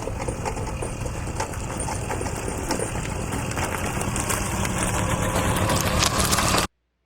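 Vehicle engine running steadily with road and wind noise, cutting off suddenly near the end.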